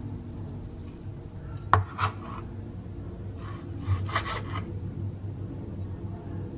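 Kitchen knife slicing raw buffalo meat on a cutting board: the blade drawing through the meat and knocking on the board, with a sharp tap a little under two seconds in and a quick run of strokes around four seconds in.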